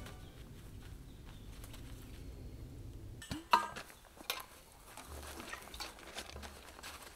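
Light clinks and knocks of hard objects, the loudest a sharp ringing clink about halfway through.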